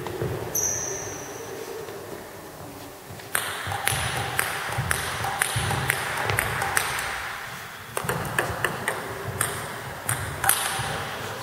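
Table tennis rally: the celluloid-type ball clicks sharply against the bats and the table, about two or three hits a second, starting about three seconds in and pausing briefly around two-thirds of the way through before picking up again. The hits ring a little in the large hall.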